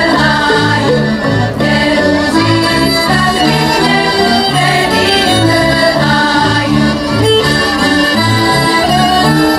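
Slovak folk band playing a lively instrumental dance tune, the fiddle carrying the melody over a steady alternating bass beat.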